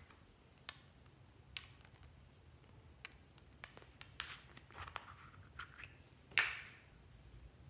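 Hands handling a small strawberry-shaped plastic container and pulling off its lid: a series of separate light plastic clicks and taps, the loudest a sharper click with a brief scrape near the end, over a faint low hum.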